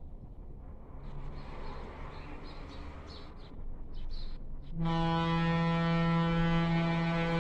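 Birds chirp. About five seconds in, a train locomotive's air horn starts one long, loud, steady blast.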